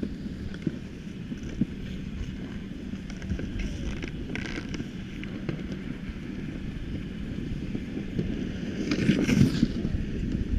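Wind buffeting the microphone in a steady low rumble while skiing, with a brief hiss about nine seconds in.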